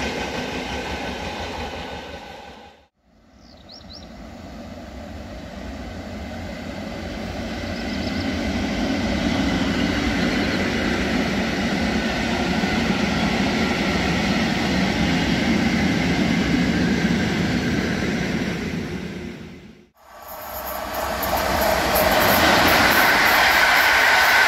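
Freight wagons rolling past on electrified track, their wheels rumbling steadily over the rails: first the last tank wagons of one train, then, after an abrupt cut, a train of hopper and open wagons that grows louder as it comes alongside. After a second cut about 20 seconds in, passenger coaches pass, louder still.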